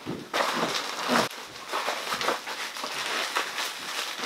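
Bubble wrap and packing rustling and crinkling as hands dig through a cardboard box, loudest in the first second or so, then softer rummaging.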